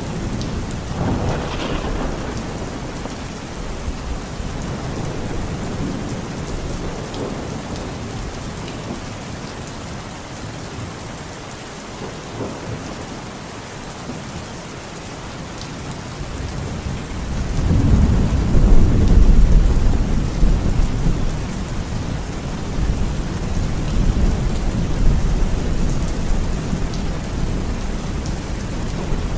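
Heavy rain pouring steadily, with thunder. A short rumble comes about a second in, and a long, deep roll of thunder builds up past the halfway point. It is loudest a couple of seconds later, then fades slowly under the rain.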